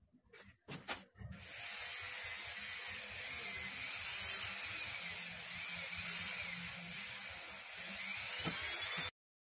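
A handheld rotary tool with a felt polishing wheel runs at high speed with a steady, high-pitched whine, used to polish a circular saw armature's commutator with polishing compound. A couple of knocks come just before it starts, and it cuts off suddenly near the end.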